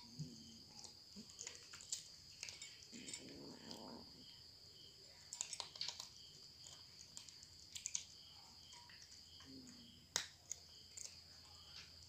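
Cats eating dry kibble: faint, irregular crunching and clicking of teeth on the kibble, loudest a little after five seconds and again about ten seconds in.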